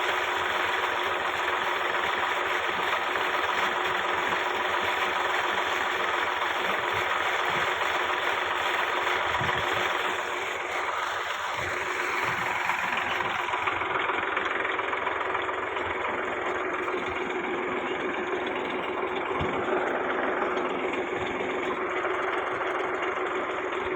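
An engine running steadily over a rush of water as rainwater is drained into an old borewell. The sound drops a little about ten seconds in, and the highest hiss falls away shortly after.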